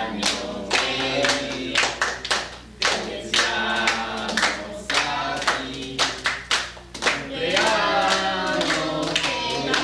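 A small group of adults and children singing a birthday song together, with hand-clapping along to it.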